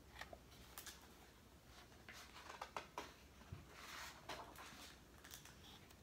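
Faint paper rustling and a few soft taps and clicks as a hardcover picture book is handled and its page turned.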